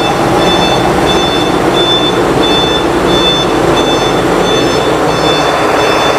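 Mitsubishi Fuso Fighter FN62F truck's 6M60 diesel engine running as the truck manoeuvres, with an electronic warning beeper sounding in a steady on-off rhythm.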